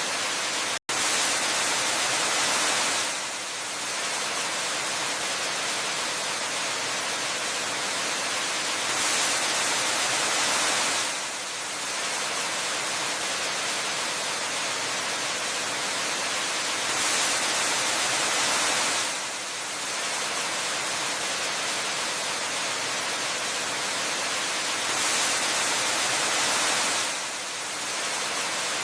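Waterfall, a steady hiss of falling water. It swells slightly louder for about two seconds every eight seconds, and there is a split-second break in the sound just under a second in.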